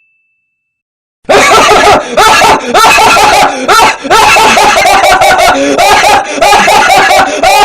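A loud, high-pitched laugh played as a meme sound effect. It starts about a second in and goes on as a quick run of repeated rising 'ha' sounds.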